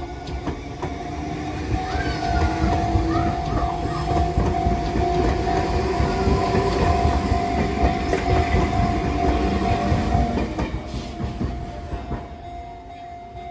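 Enoden electric train passing close by at a level crossing, its wheels clattering over the rail joints; the rumble builds about two seconds in and fades near the end. A steady ringing tone runs throughout, the crossing's warning alarm.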